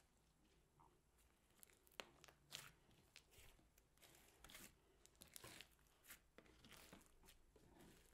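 Big mass of mixed slime being kneaded and pressed by hand, giving faint sticky squelches with irregular pops and crackles, about one or two a second, the sharpest about two seconds in.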